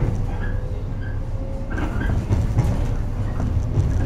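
JR West 115-series electric multiple unit KuMoHa 115-1659 running along the line, heard from inside its driver's cab: a steady low rumble of wheels and traction motors, with a faint motor whine and a few light knocks from the wheels on the track.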